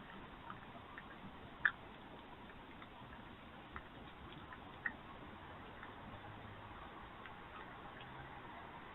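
Faint steady hiss with a scattered handful of short, sharp clicks at irregular intervals, the loudest about two seconds in and another near five seconds.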